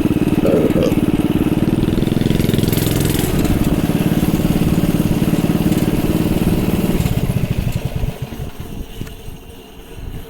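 Small single-cylinder engine from a pressure washer, fitted to a home-built mini bike, running steadily. About seven seconds in it slows, its firing pulses spacing out as it dies away.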